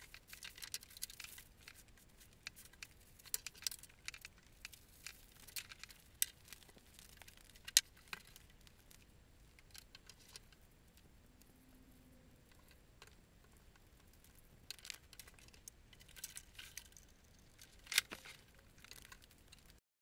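Twisted paper strands being handled on a wooden tabletop: irregular crinkling rustles and light taps, with a sharper tap about eight seconds in and another near the end.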